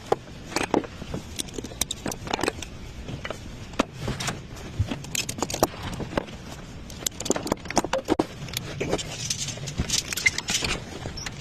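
Irregular metallic clinks and rattles, loose metal being handled, with sharp clicks scattered unevenly throughout.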